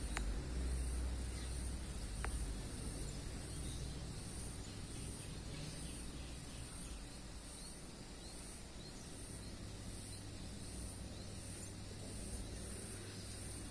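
Insects droning high and steady in even pulses, over the faint low rumble of a distant approaching passenger train.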